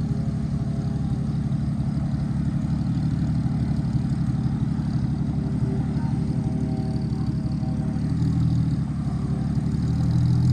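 Vehicle engine running steadily at low revs.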